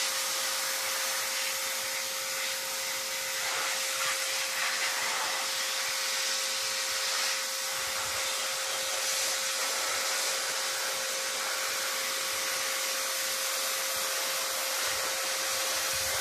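Pressure washer running steadily, its water jet hissing as it sprays a wooden garden table and the ground beneath, with a steady whine running through the hiss.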